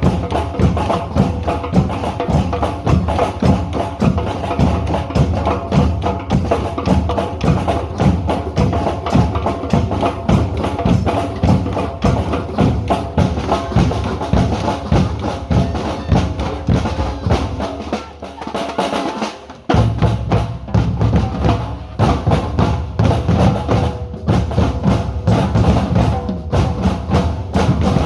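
A group of drummers playing together in a steady, driving rhythm, with deep bass drums under dense sharper strikes. About two-thirds of the way through, the bass drums drop out for a couple of seconds, then the whole group comes back in.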